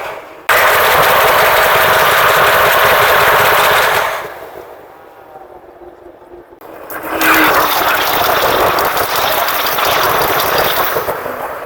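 D20E diesel locomotive running fast, a loud rattling mechanical noise of engine and train. It cuts in abruptly about half a second in, falls away around four seconds in, and comes back suddenly a little before seven seconds.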